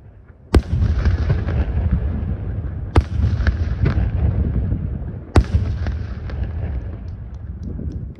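Aerial firework shells exploding: three loud bangs about two and a half seconds apart, each followed by a long rolling echo, with lighter crackles between them.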